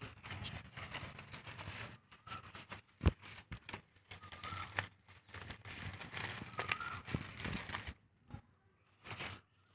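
Dry corn husks on Glass Gem corn cobs rustling and crackling as hands handle the cobs, stopping about eight seconds in.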